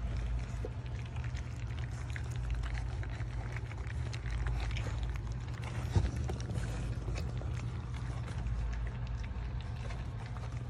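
A litter of Cane Corso puppies eating kibble together from a metal pan: busy wet chewing and lapping with many small clicks of teeth and muzzles on the pan, and one louder knock about six seconds in.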